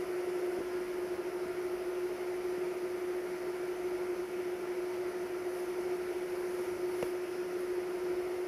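Steady background hum with a constant mid-pitched tone over an even hiss, and a faint click about seven seconds in.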